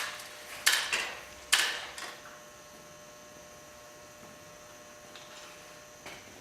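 A handful of sharp knocks and clunks, about five in the first two seconds, then a steady faint electrical hum.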